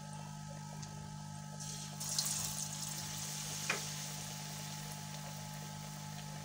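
Batter-coated potato tikki balls frying in hot ghee in an aluminium karahi: a steady sizzle that swells louder about two seconds in, with a single click shortly after.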